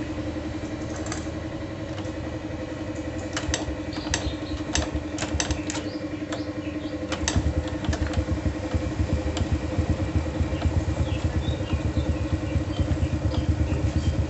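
Honda Supra's single-cylinder four-stroke engine idling steadily, freshly fitted with a new cam chain and serviced camshaft and carburettor, running smoothly. A few sharp ticks come in the first half, and about seven seconds in the low engine note grows heavier.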